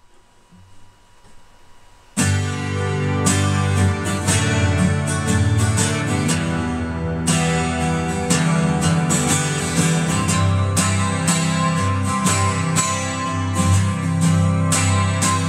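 Twelve-string cutaway acoustic guitar strummed in full chords, coming in suddenly about two seconds in after a near-quiet start and going on in a steady strumming rhythm as a song's instrumental intro.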